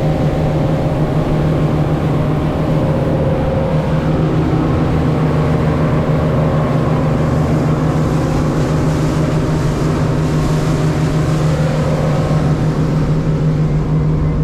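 Charter fishing boat's engine running steadily underway, a constant low drone.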